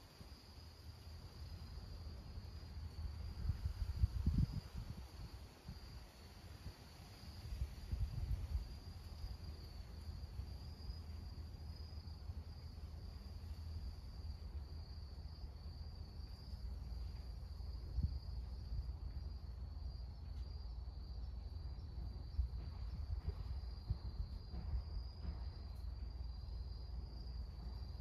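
Steady high-pitched trilling of crickets in garden grass, one unbroken tone, over a low rumble that swells briefly about 4 and 8 seconds in.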